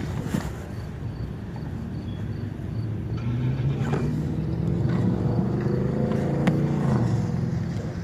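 Truck engine revving. The engine note climbs about three seconds in, stays up, and drops back near the end.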